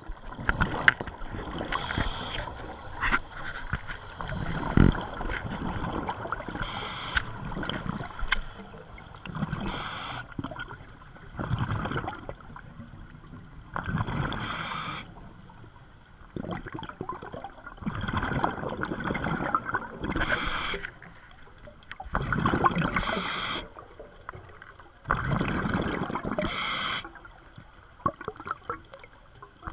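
Scuba diver breathing through a regulator underwater: a short hissing inhale every three to five seconds, about seven in all, each followed by a longer stretch of exhaled bubbles.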